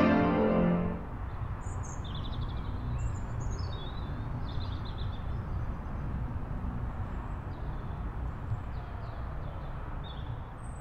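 Background music fading out about a second in, then small birds chirping over a steady low rumble of ambient noise.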